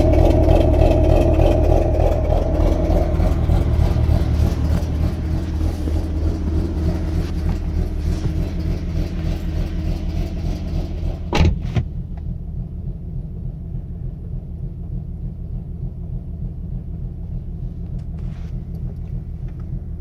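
2014 Ford Mustang's 3.7-litre V6, tuned with ghost cams and running shorty headers, an off-road H-pipe and stock mufflers, heard from inside the cabin. A loud, pulsing low rumble fades over the first several seconds and settles into a quieter steady rumble. A single sharp knock comes about eleven and a half seconds in.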